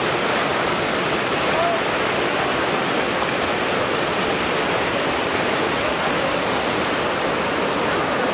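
Muddy floodwater of a swollen river rushing and churning over a broken bank, a steady unbroken rush of water.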